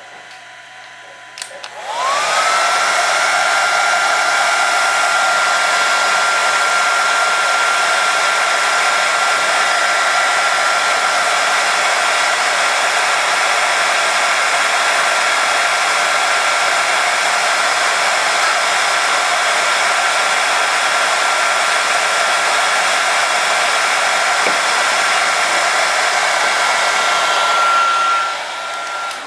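Heat gun switched on about two seconds in: its motor whine rises quickly to a steady pitch over a loud, even rush of blown air, and it cuts off near the end. It is warming a 3D printer's taped bed to about 50 °C before a print.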